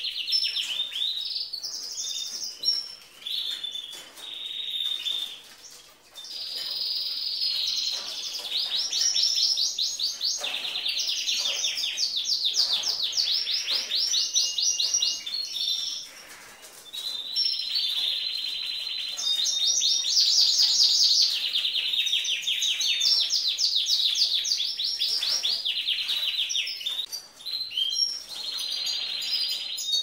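Domestic canary singing: long phrases of fast trills and rolls, with brief breaks between phrases.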